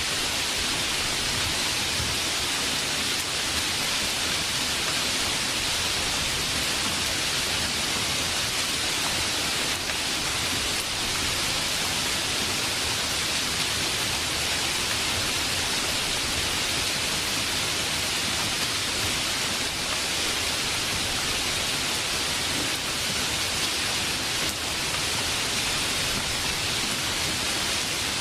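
Steady heavy rain, a dense even hiss with no separate drops or thunder standing out.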